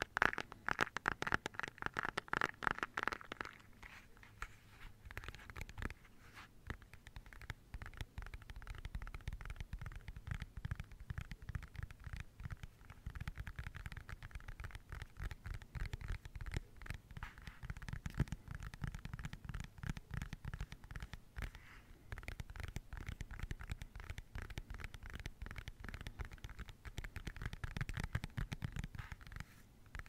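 Rapid, continuous tapping on plastic. The taps sound brighter for the first three seconds or so, then duller and deeper.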